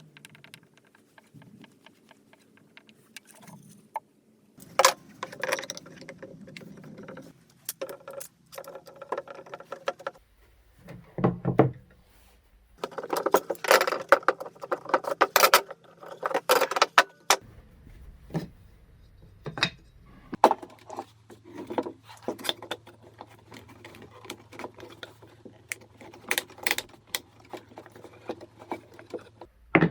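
Irregular knocks, clicks and rattles of wooden parts and hand tools being handled, set down and fitted together, with denser clattering about halfway through.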